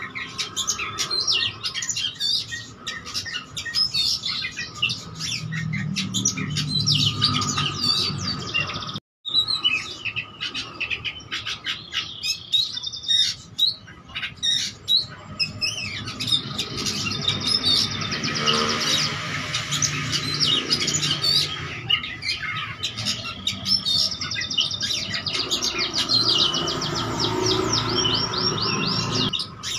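Oriental magpie-robin (kacer) singing rapidly and without let-up, a varied song of chirps and trills packed with mimicked calls of other birds. The sound cuts out for a moment about nine seconds in.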